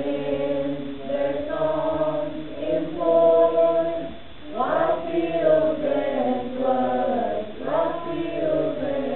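Small mixed choir of teenage boys and girls singing together, holding notes that change about once a second.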